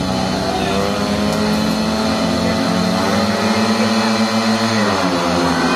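Several speedway bikes' 500 cc single-cylinder methanol engines running hard and revving, fitted with new silencers; the engine notes shift, falling and then rising again about four to five seconds in.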